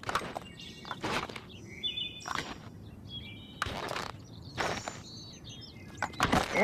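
Cartoon sound effects: about six slow, heavy thuds a second or so apart, the footsteps of someone lugging a large stone, with short bird chirps in between.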